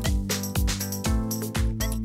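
Upbeat background music with drums keeping a steady beat of about two beats a second.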